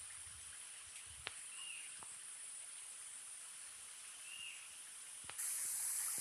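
Steady high hiss of rushing water from a waterfall, with a few short chirps and faint clicks over it. Near the end the rushing hiss jumps suddenly louder.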